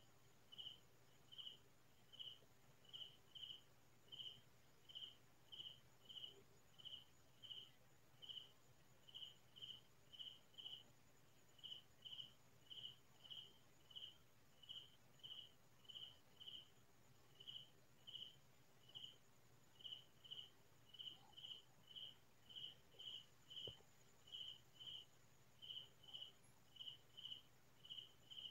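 Cricket chirping: faint, short high-pitched chirps at a steady pace of a little under two a second, some coming in quick pairs.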